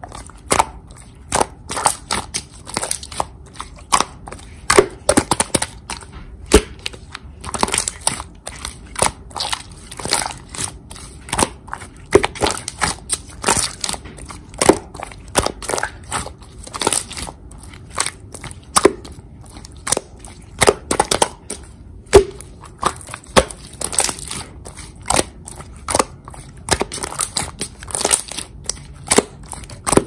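Pink clear slime being squeezed, pressed and stretched by hand. It gives an irregular run of sharp sticky clicks, pops and crackles, several a second.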